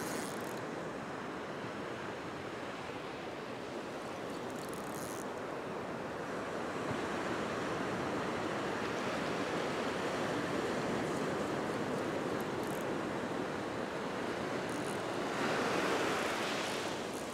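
Ocean surf breaking and washing up a sand beach, a steady rushing that swells louder near the end as a wave runs up the shore.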